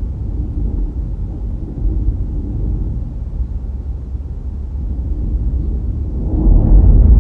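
Car driving along a road: a steady low rumble of road and wind noise, growing louder near the end.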